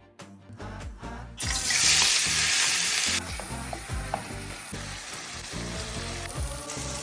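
Food sizzling in hot oil in a frying pan: a loud burst of sizzling starts about a second and a half in, then after about two seconds eases into a steadier, quieter frying. Background music with a beat plays underneath.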